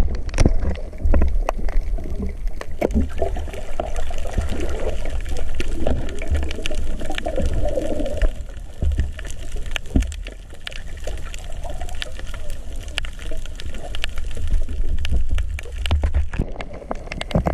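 Water moving and bubbling, heard underwater over a reef at night, with a steady low rumble and many scattered sharp clicks.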